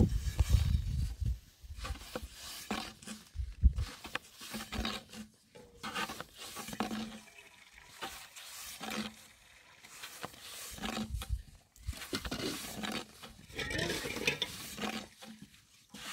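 Long thin wooden rolling pin rolling and knocking on a round wooden board as flatbread dough is rolled out, in irregular bursts of rubbing and light knocks.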